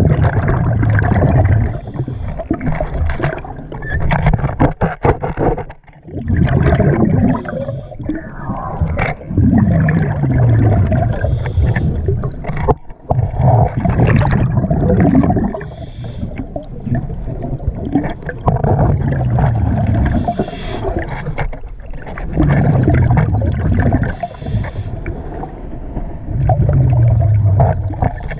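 A scuba diver breathing through a regulator underwater: bubbly exhalations rumble in bursts every few seconds, with scattered sharp clicks and knocks between them.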